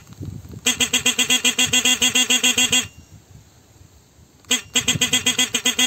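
Honda Titan motorcycle's horn honked in two stuttering blasts, the first about two seconds long and the second just over a second, with a short pause between.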